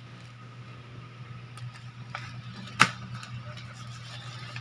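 Soft wet rubbing and handling as a hand works salt into a scored whole pompano on a ceramic plate, with a few small clicks and one sharp click a little past the middle. A steady low hum runs underneath.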